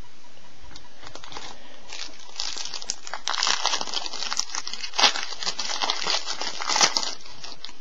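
Crinkling of a trading-card pack wrapper being handled and opened: a dense crackle that starts about two seconds in and runs for several seconds, with two sharper crackles near the end.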